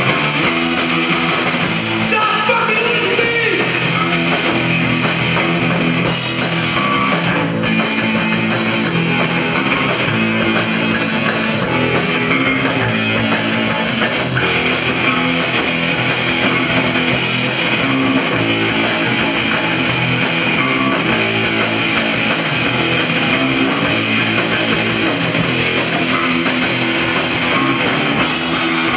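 Live rock band playing loudly: electric guitar, bass guitar and drum kit together, heard as a raw, unmixed live recording.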